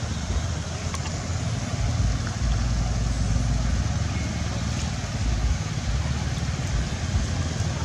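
Steady outdoor noise with an unsteady low rumble underneath and an even hiss above.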